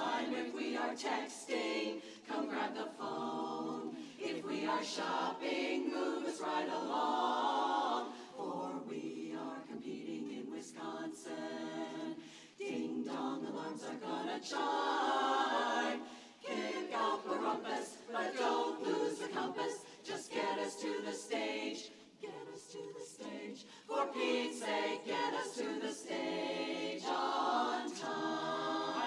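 Women's barbershop chorus singing a cappella in close harmony, in sung phrases with brief breaks between them.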